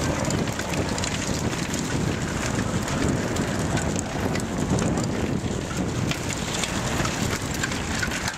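Steady wind noise rumbling on the microphone, with scattered short clicks.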